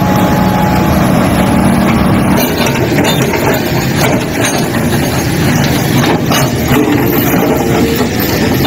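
Heavy diesel engine of a tracked excavator running steadily, with the engine note changing about two and a half seconds in.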